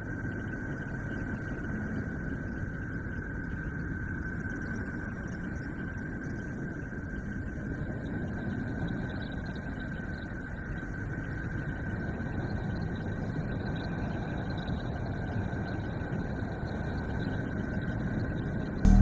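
Spacecraft data converted to sound and played as the sound of a planet: a steady low rumbling hiss with a thin steady high tone over it.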